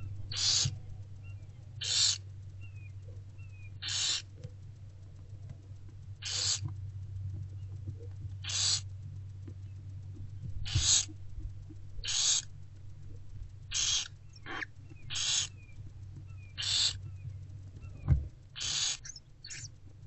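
Barn owlets giving short rasping begging hisses, about one every one and a half to two seconds, as they are fed. A steady low hum runs underneath, with one soft knock near the end.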